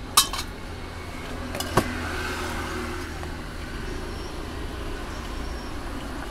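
Steady low rumble of road traffic, with a few sharp clicks just after the start and one more near two seconds in.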